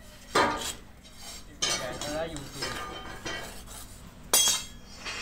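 Three sharp metallic clanks, each with a short ring. The first comes just after the start, the second about a second later, and the third near the end.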